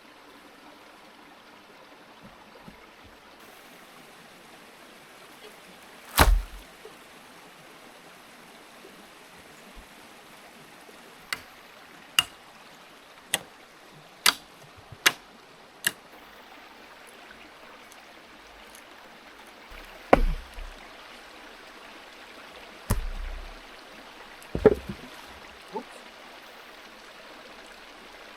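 A river flowing steadily, with a series of sharp knocks over it: one loud knock about six seconds in, a run of six about a second apart, then a few heavier thumps near the end.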